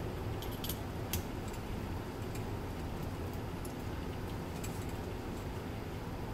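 Faint clicks and ticks of electrical wires being handled and joined at an outlet box, a few in the first second and one or two more near the middle, over a steady low hum.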